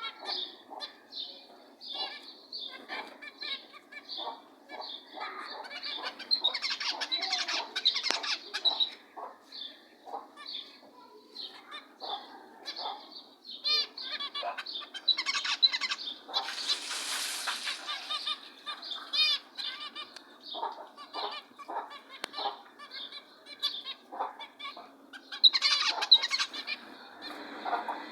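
A group of zebra finches calling: a dense run of short, nasal beeping calls one after another, with wings fluttering among them.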